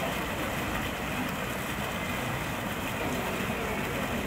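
Steady outdoor background noise: a continuous low rumble with hiss and no distinct events.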